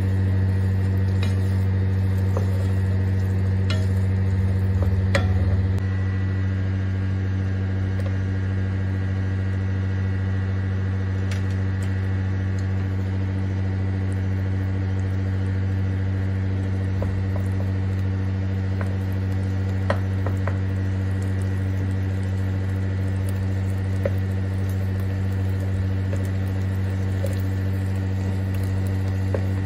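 Chickpeas, onion and barberries frying in oil in a pot, with a light sizzle and occasional scrapes and taps of a wooden spoon stirring them. A steady low hum runs underneath and is the loudest sound.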